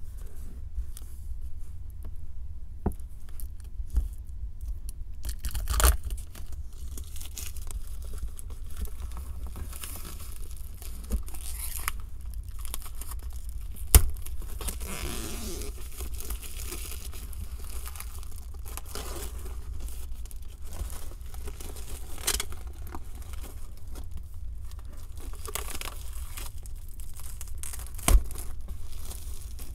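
A 3D puzzle set's packaging being opened by hand: wrapping tearing and crinkling, with scattered clicks and taps. A few sharp knocks stand out, the loudest about halfway through and near the end, over a steady low hum.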